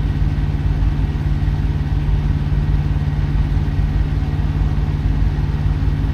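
Diesel engine idling steadily, a low even rumble with a constant hum.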